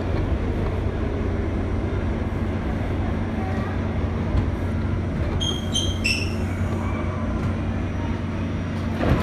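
R68 subway train running into an underground station with a steady low rumble and hum, slowing down. A few short high squeals come about halfway through.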